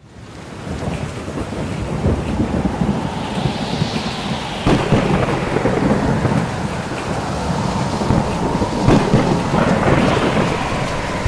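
Heavy rain with rolling thunder, fading in from silence at the start. A sharp thunder crack comes a little before halfway, and another about four seconds later.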